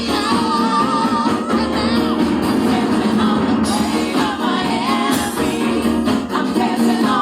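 Live gospel praise music: singing with wavering vocal lines over guitar and band accompaniment with a steady beat, in a large hall.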